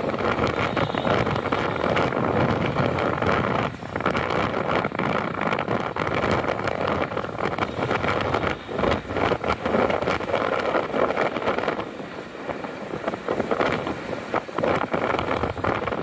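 Wind rushing over the microphone of a moving vehicle, mixed with the running of motorcycles and cars in street traffic; the noise eases for a couple of seconds about three quarters of the way through.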